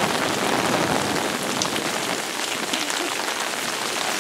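Steady rain falling on wet sand and umbrellas, a constant hiss with a few drops ticking close by.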